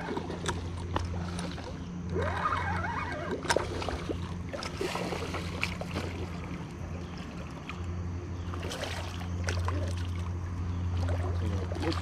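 Hooked fish splashing in the shallows as it is reeled in to the bank: a few scattered splashes and sharp little sounds over a steady low hum.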